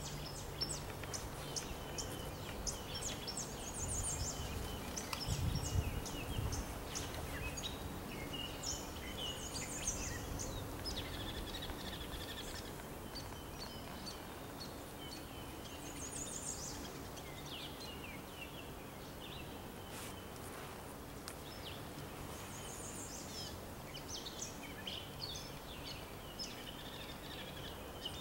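Several small birds singing, their short, high phrases and chirps overlapping and repeating throughout over a steady background hiss. A brief low rumble comes about five seconds in.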